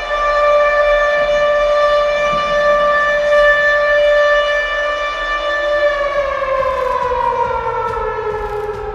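A ballpark home-run siren sounding one long steady note, then winding down in pitch over the last three seconds.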